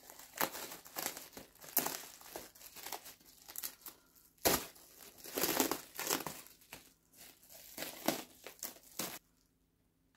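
Packaging crinkling, rustling and tearing in irregular bursts as plant wrappings are unwrapped by hand, stopping abruptly about a second before the end.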